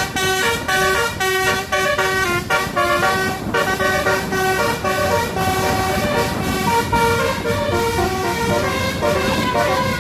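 Basuri telolet bus horn playing a tune, with quick notes for the first three seconds or so, then longer held notes.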